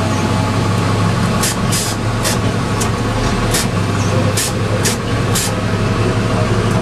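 A garbage truck's diesel engine runs steadily while the Curotto Can arm tips and shakes a wheeled trash cart to empty it. The shaking sets off about eight short, sharp clatters, spread from about a second and a half in to about five and a half seconds.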